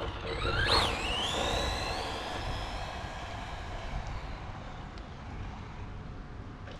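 Brushless electric motor of a Hobao EPX RC truck (2S, 5400kv) whining under throttle: the pitch sweeps up and down about a second in, then climbs steadily for a couple of seconds as the truck accelerates away, and fades.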